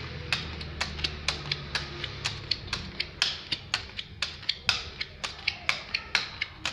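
Neapolitan playing cards dealt one by one into three piles on a stone tabletop, a sharp click as each card lands, about three a second.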